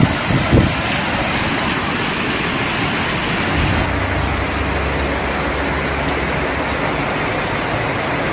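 Heavy rain pouring down, a loud steady hiss, with two low thumps in the first second.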